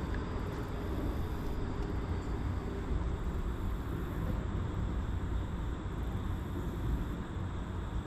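Boat motor running at a steady low drone, with no change in speed.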